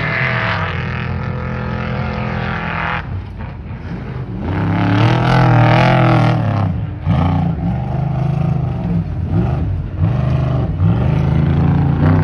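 Off-road race truck engines revving hard, the pitch climbing and dropping again and again as the trucks race by, loudest about five seconds in.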